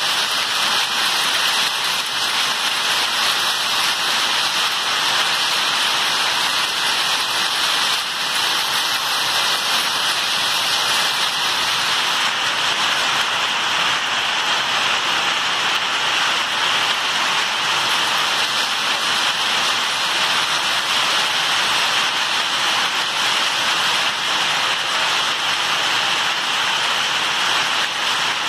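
Hailstorm: hail and heavy rain falling on a paved street, a loud, steady hiss.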